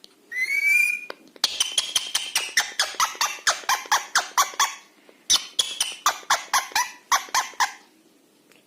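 Pet parrot giving a short rising whistle, then two runs of rapid, clipped squeaks, about five a second, each lasting a few seconds.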